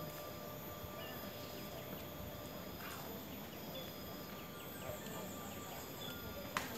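Outdoor ambience: a steady background hiss with thin, steady insect tones and a few short high chirps. One sharp click comes near the end.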